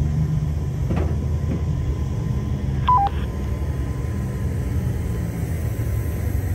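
A steady low mechanical drone, like a generator or idling machinery. About three seconds in comes a short two-tone electronic beep, the second tone lower, and there are a few faint clicks.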